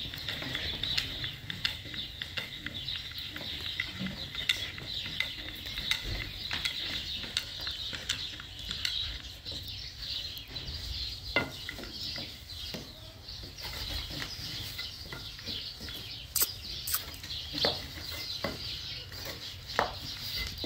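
A utensil stirring and scraping in a cooking pot: a dense run of small clicks and scrapes, with a few sharper knocks in the second half.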